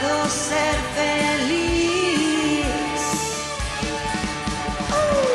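Rock-blues song played live by a band: a female singer holds long, bending notes over guitar and a steady drum beat. Near the end one note slides down in pitch.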